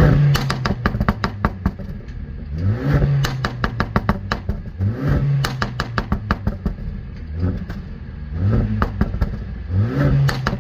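Mercedes-AMG CLA 45 S turbocharged four-cylinder revved repeatedly. Each time the revs climb, hold briefly and drop, followed by a rapid string of exhaust pops and crackles on the overrun from its sportier tune.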